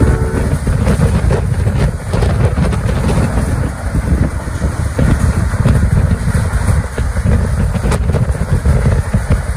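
Rumble of a moving passenger train heard from the coach, with heavy wind on the microphone and scattered knocks. A train horn cuts off within the first half-second.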